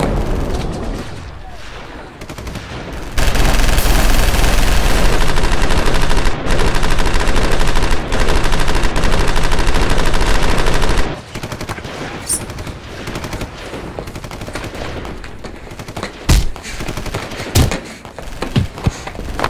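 Sustained rapid machine-gun fire, added as a film sound effect, starting about three seconds in and cutting off sharply some eight seconds later. It is followed by scattered sharp thuds and impacts of a fistfight.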